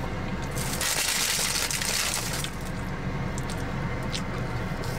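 Eating sounds of a mouthful of chow mein being chewed, with a rushing hiss lasting about two seconds soon after the start, over a steady low hum.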